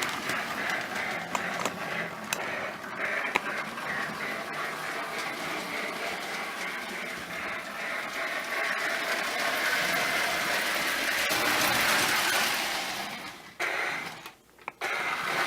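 Marx No. 1666 toy steam locomotive running on three-rail O-gauge track: motor and gears whirring and wheels clicking, mixed with the staticky white-noise hiss that its Sound O' Power tender makes to mimic a train. The sound falls away about 13 seconds in.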